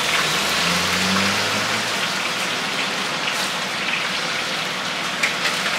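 Battered fritters deep-frying in a wide wok of hot oil: a steady, dense sizzle with crackling.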